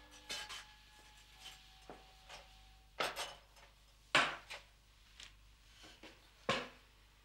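Irregular knocks and clinks of small hard objects being picked up and set down on a counter, about ten in all. The loudest is about four seconds in, with other strong ones near three and six and a half seconds.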